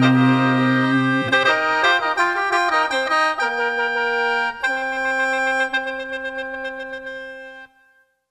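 Khaen, the bamboo free-reed mouth organ of Isan mor lam, playing a closing phrase of several notes sounding together over held drone tones. The chords change a few times and the music stops shortly before the end.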